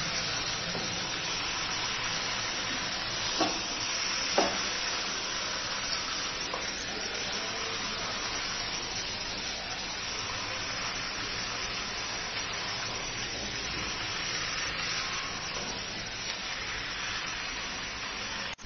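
Chicken gizzards, livers and stomachs sizzling steadily in a frying pan with spice paste while being stirred with a wooden spatula, with two sharp knocks of the spatula against the pan a few seconds in.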